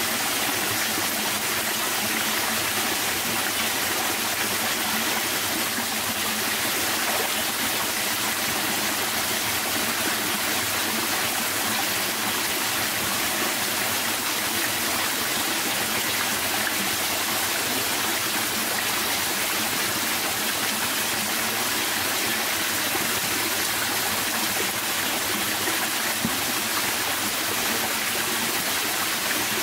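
A rocky forest stream running, a steady rush of water that holds unchanged throughout.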